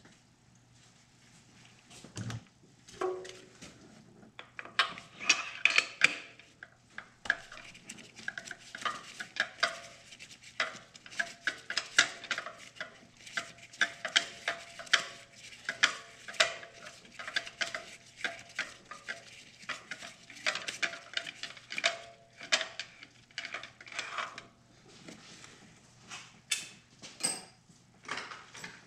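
Metal hand tools clicking and clinking against each other in quick, irregular strokes with a light metallic ring, starting about three seconds in.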